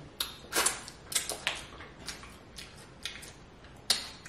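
Close-up mouth sounds of someone chewing sausage: a string of short wet clicks and lip smacks, the loudest near the end.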